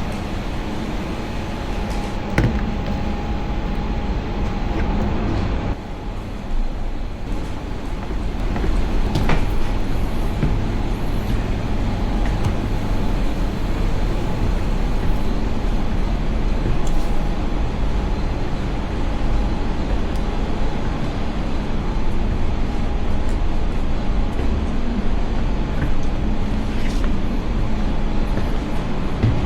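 Steady low mechanical rumble with a faint constant tone and a few short knocks.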